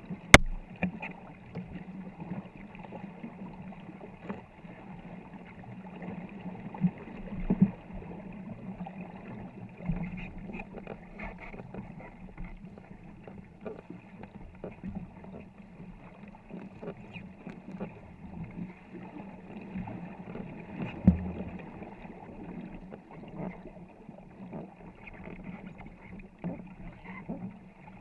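Wooden war canoe being paddled hard by a crew: paddle blades dip and splash at the hull side, water washes along the boat, and irregular hollow knocks come from paddles and the hull. The sharpest knocks fall just after the start and about three quarters of the way through.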